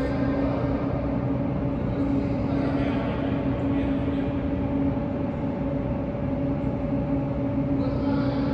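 Steady mechanical hum with a strong low steady tone over a broad rumble, unchanging throughout.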